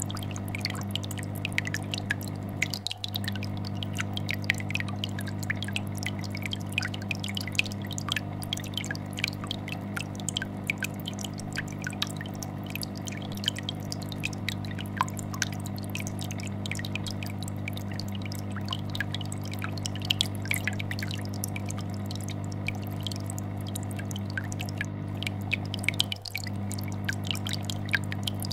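Aquarium air bubbler and filter running: a steady low hum from the vibrating filter under a constant stream of small, irregular bubbling pops and drips. The sound dips briefly twice.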